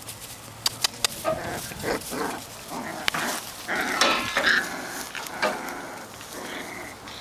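Norwegian Elkhound–Akita mix puppies wrestling and vocalizing in short bursts, loudest around the middle. A few sharp clicks about a second in.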